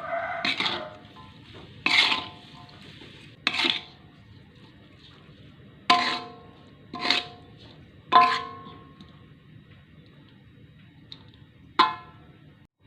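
Metal cutlery clinking against a plate, about seven separate strikes spread irregularly, each ringing briefly.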